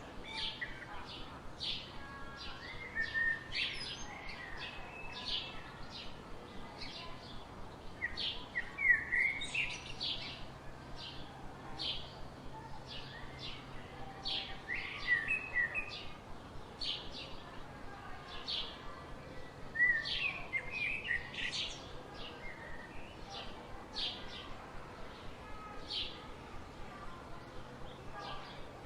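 Songbirds calling: short high chirps come about once a second throughout, and a lower warbled phrase breaks in every few seconds.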